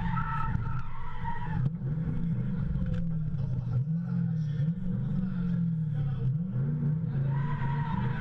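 Drift car engine heard from inside the cabin, its revs rising and falling again and again as the car slides. Tyres squeal in the first second or so and again near the end.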